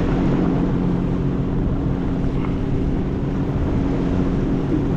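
Jet ski engine running at a steady low speed, an even engine hum under a rush of water and wind noise.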